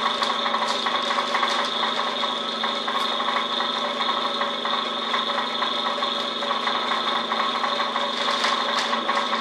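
Vacuum pump running steadily with a constant hum and a high whine, drawing vacuum through a hose on a vacuum-bagged wing lay-up. A few faint ticks sound over it.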